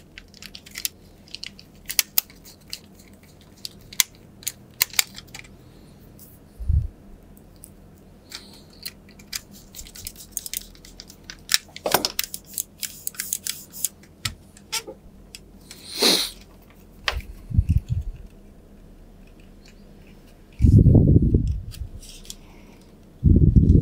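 Small clicks, taps and scrapes of the plastic shell and internal parts of a ROCCAT Kain 202 mouse and a small screwdriver being handled during reassembly. There is a short low thud about seven seconds in, and two louder dull low thumps near the end.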